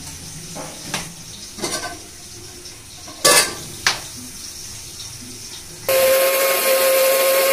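Kitchen handling sounds: a few light clicks and a loud rustle as a plastic water bottle is handled and poured. Then, about six seconds in, a loud steady hiss with a constant hum in it starts abruptly and stops about two seconds later.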